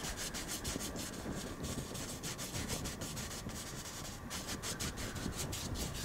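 A paintbrush scrubbing oil paint onto canvas in quick back-and-forth strokes, a steady dry rubbing.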